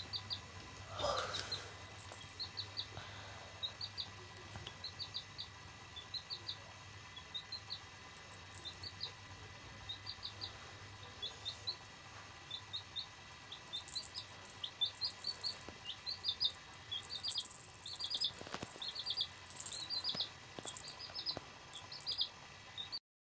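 Baby chick peeping: rapid runs of short, high chirps, two to four at a time, growing busier and louder in the second half. A single falling cry comes about a second in.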